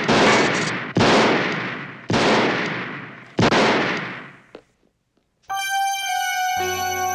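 Handgun fired four times on a film soundtrack, the shots about a second apart and each with a long echoing tail. After a brief silence, electronic horror-film score with sustained synth tones comes in about five and a half seconds in.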